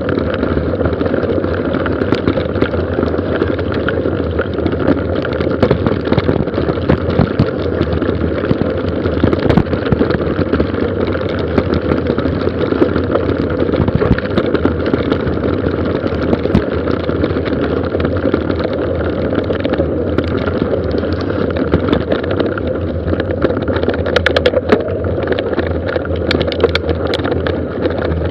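Mountain bike running fast downhill on a gravel forest road: a steady rush of wind on the microphone and tyre noise, with many small rattles and clicks from the bike over the rough surface.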